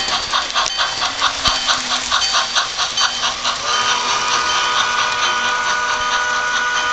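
DCC sound decoder in an HO model 2-6-0 steam locomotive playing rhythmic steam chuffs, about four a second. About three and a half seconds in, the chuffing gives way to a steady sound of several held tones.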